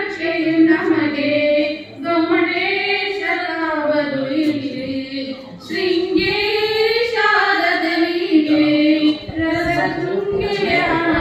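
Two women singing a Kannada song together into a microphone, in long held phrases with short breaks every three or four seconds.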